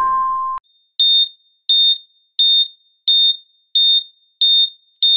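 Heart-monitor beeping: six short high beeps at a steady pace of about three every two seconds, then near the end the same tone holds unbroken, the flatline that signals the heart has stopped.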